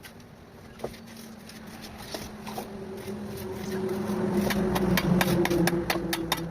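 A motor hum that grows louder over the last few seconds, with many short sharp taps and clicks over it.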